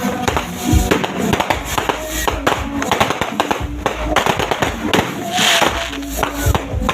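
Fireworks and firecrackers going off in a dense, rapid string of cracks and bangs, with a brief hiss about five and a half seconds in. Music plays along underneath.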